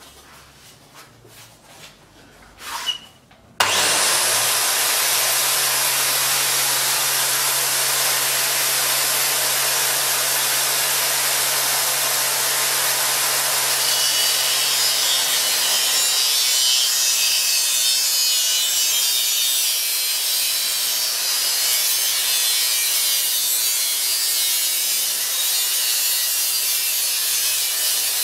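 Angle grinder, clamped in a bench vise, switched on about three and a half seconds in and running steadily. From about halfway a metal curtain-rod tube is held against the abrasive disc and ground down. The sound turns hissier there and the motor hum drops a little under the load.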